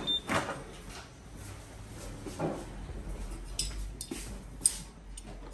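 A short high electronic beep, together with a sharp click, as the Yamaha TMAX 560's dashboard powers up. Scattered clicks and knocks of handling follow over a faint low hum.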